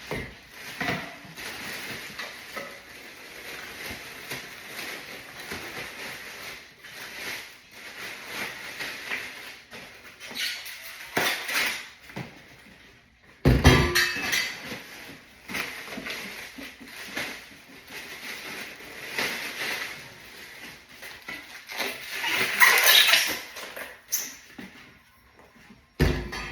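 Clinking and clattering of hard parts and tools being handled, with many small clicks and a couple of louder knocks, about halfway through and near the end.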